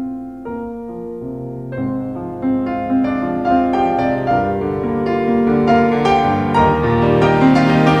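Background instrumental music: held notes that build up layer on layer, growing fuller and louder.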